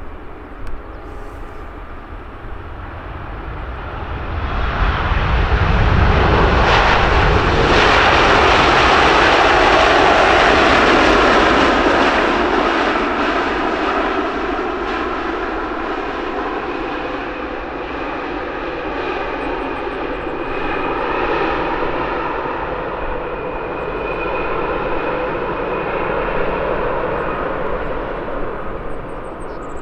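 Jet airliner landing close by: engine noise swells over a few seconds to its loudest, then eases and carries on as a steady rumble with high whining tones.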